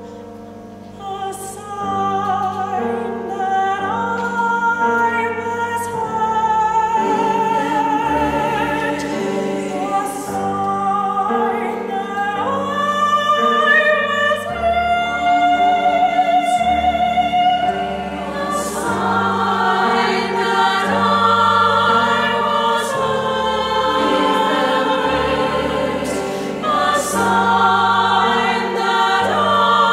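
Women's treble choir singing with piano accompaniment. The voices come in about a second in and hold long notes over steady low piano notes.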